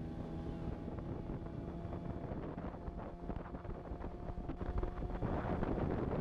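Outboard motor running steadily under way on an inflatable boat, the Marlin 9.9 two-stroke, with wind buffeting the microphone and water rushing past the hull. The sound grows louder about five seconds in.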